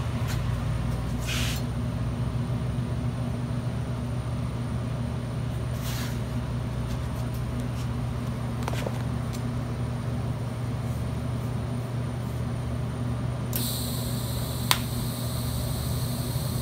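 A steady low hum of shop background runs throughout, with two brief faint noises in the first half. About three seconds before the end a TIG welding arc strikes and runs with a steady high hiss, and one sharp click comes about a second after the strike.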